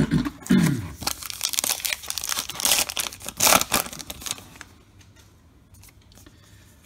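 The wrapper of a 2021 Topps Allen & Ginter card pack crinkling and tearing as it is pulled from the box and ripped open, a dense crackle for about four and a half seconds, then only faint handling of the cards.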